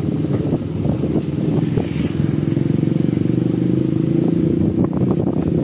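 A motor vehicle engine running steadily close by, a low even hum.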